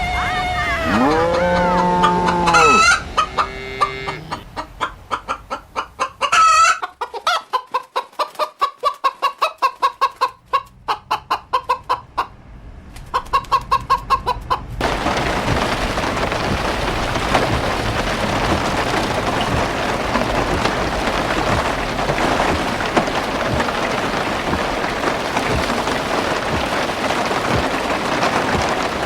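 A rooster crowing, then chickens clucking in a quick steady rhythm. About halfway through it cuts abruptly to the even hiss of steady rain.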